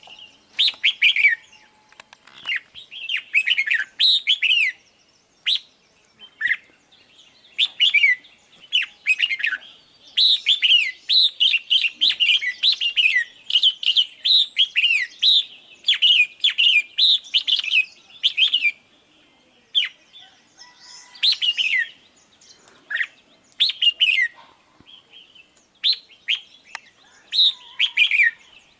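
Red-whiskered bulbul calling over and over: bouts of quick, bright chirps and whistled notes, many sliding down in pitch, with short pauses between bouts.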